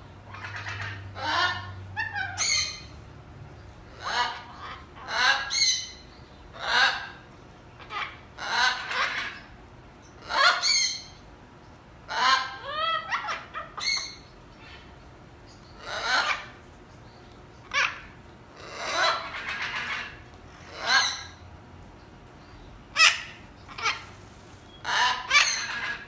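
Parrots squawking and calling over and over: a string of loud, short, harsh calls, one every second or so, some coming in quick pairs.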